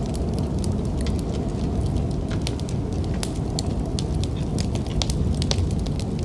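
Wood fire crackling, with frequent sharp, irregular pops over a steady low rumble.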